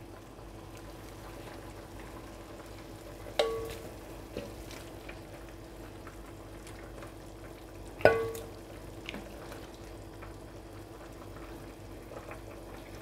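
A ladle scooping boiled beef and cow skin out of hot stock in an enamelled pot, the liquid faintly sizzling and stirring. Two sharp knocks with a brief ring, about three and a half seconds in and again about eight seconds in, with a few small clinks between.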